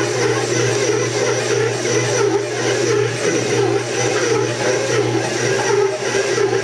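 Bowl-lift stand mixer running steadily, its dough hook kneading a ball of pizza dough that has come together: a constant motor whir with a low hum.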